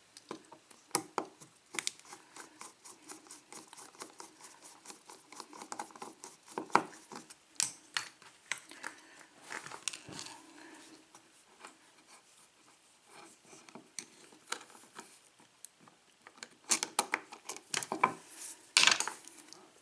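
Small metal clicks and clinks of a screwdriver backing screws out of the back of a 5-pin Norwalk cylinder lock, with the lock's parts handled. A flurry of louder clinks comes near the end.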